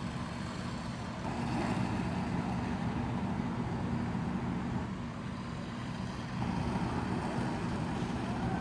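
Fire truck engine running steadily, a low even hum.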